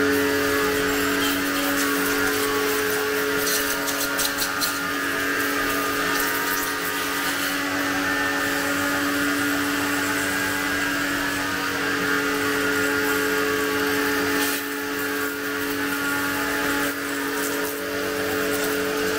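Agaro Royal 1800 W electric pressure washer running: a steady motor-and-pump hum under the hiss of the high-pressure water jet hitting a motorcycle. The level dips briefly about two thirds of the way through.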